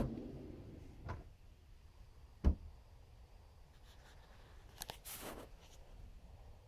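Knocks from handling a wardrobe's pull-out drawers: a light knock about a second in, one heavy thump about two and a half seconds in, and a brief rustle with clicks about five seconds in.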